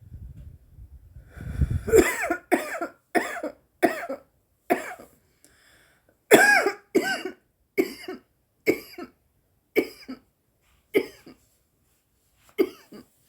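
A woman coughing hard from cannabis smoke: a low rumble, then about fifteen sharp, voiced coughs in bouts with a short break near the middle.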